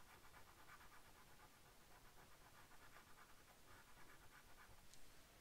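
Faint scratching of a chalk pastel stick on paper, in short repeated strokes.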